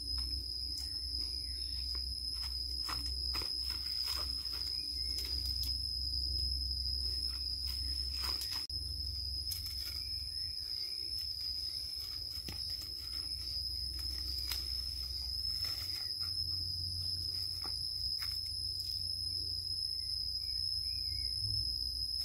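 Insects droning in a steady high unbroken tone, with scattered clicks and rustles of handling or twigs and a low rumble underneath.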